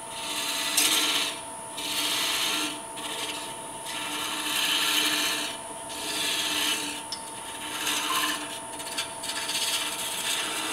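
A wood lathe runs with a steady whine while a small hand-held turning tool cuts into the spinning wooden bell blank in about eight short scraping strokes, roughly one a second, as it is cut free from the stock.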